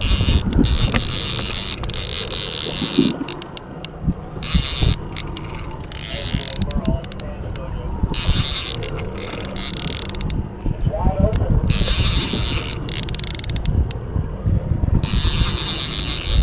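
Fishing reel ratcheting in spurts as a hooked striped bass pulls against the line.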